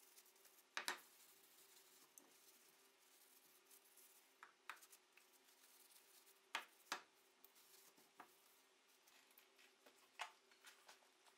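Faint handling of a wooden gun stock being wiped with a rag on a paper-covered workbench: a few short light knocks and taps, some in pairs, over a low steady hum.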